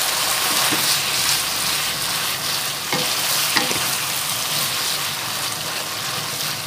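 Rice vermicelli with seafood and greens sizzling as it is stir-fried in a wok, tossed with a wooden spatula; the spatula knocks against the pan twice about three seconds in.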